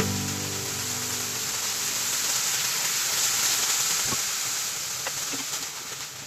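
Food sizzling in a frying pan: a steady frying hiss that eases off slowly, with a few light clicks near the end.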